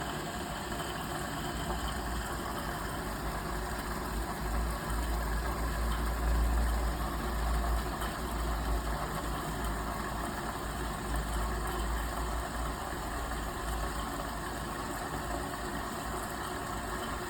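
Kunft washing machine running its final rinse cycle: a steady low motor and drum rumble that swells a little about halfway through.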